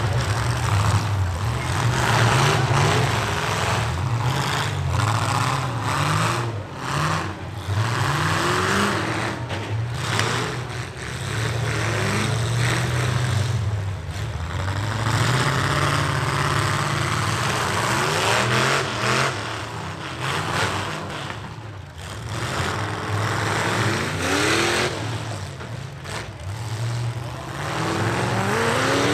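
Several demolition derby trucks' engines revving hard, their pitch rising again and again as they accelerate and dropping back between runs, over a constant rumble of engine noise.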